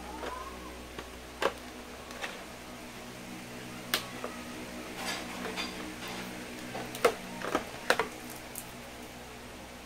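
Clear plastic figure packaging crackling and clicking as it is handled and pulled apart, in sharp separate snaps, the loudest about a second and a half in, at four seconds, and twice near the end. A steady low hum runs underneath.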